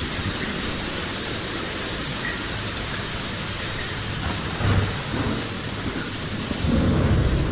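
Steady rain hissing, with low thunder rumbles: a short one about two-thirds in and a louder, longer one near the end.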